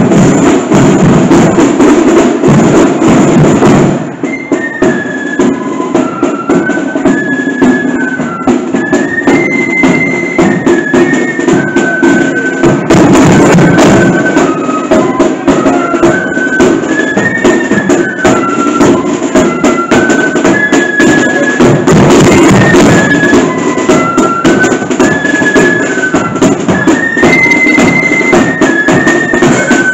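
Marching flute band playing: snare and bass drums beating, with the flutes coming in on a stepping melody about four seconds in.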